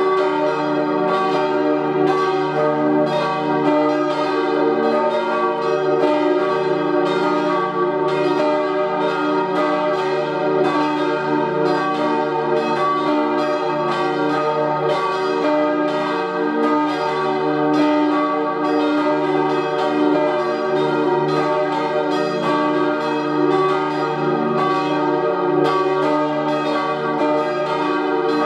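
Swinging church bells from the 1888 Rüetschi four-bell set tuned to E♭, G, B♭ and E♭, ringing together. The strokes overlap continuously into a steady peal.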